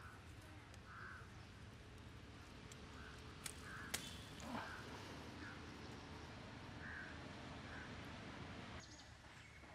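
Faint outdoor ambience with short bird calls now and then in the distance, and two sharp clicks a little before halfway as limes are picked from the tree's branches.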